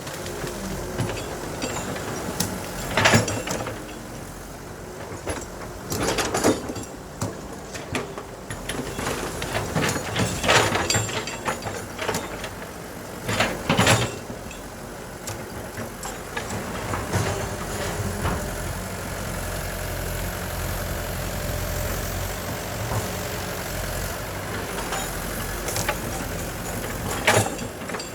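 Heavy diesel machinery, an excavator working, runs steadily at a low pitch. Loud clanks and thuds break in about five times, roughly 3, 6, 10, 14 and 27 seconds in.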